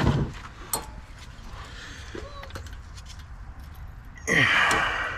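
Metal clinks and knocks of brake parts and tools as a disc-brake caliper is fitted back over new pads, with a louder harsh rasp lasting under a second near the end.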